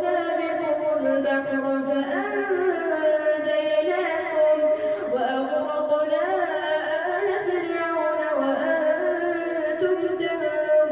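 A man's voice chanting Quran recitation in the melodic tajweed style, drawing out long ornamented vowels that glide up and down in pitch, with only brief pauses for breath.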